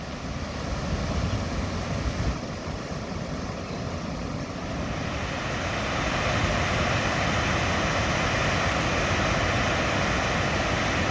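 Steady rushing noise with uneven low rumble from wind on the microphone, growing louder and steadier about halfway through.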